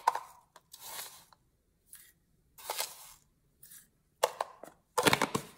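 A measuring spoon scooping salt, heard as a series of about seven short, separate scrapes spread over a few seconds. The last ones, near the end, are the loudest.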